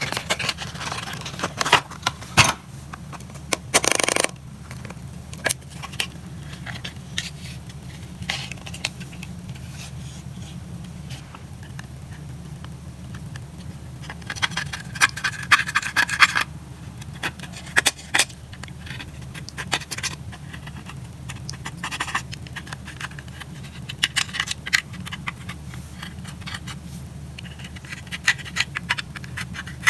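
Eyeshadow being scraped from a palette and mixed into slime: irregular scraping with sharp crackling clicks that come in busy clusters and then thin out, over a steady low hum.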